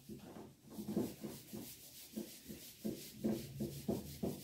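Handwriting: a run of short, faint scratching strokes, a few to the second.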